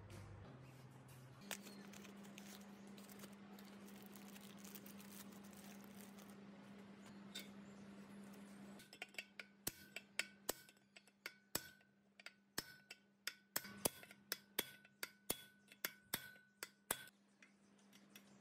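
Hammer tapping a steel pipe to drive a ball bearing onto a motor rotor shaft: sharp metallic taps, two or three a second, each with a short ring. The taps start about halfway in, after a faint steady hum.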